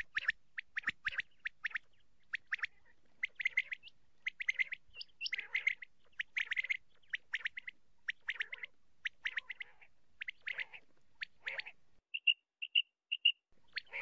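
Common quail calling in short bursts of rapid notes, about two bursts a second. Near the end this gives way to single short, clear, piping notes at about the same pace.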